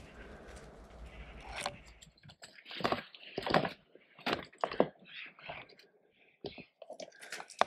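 Footsteps crunching on broken brick rubble and debris, irregular steps about twice a second, after a low steady rumble in the first two seconds.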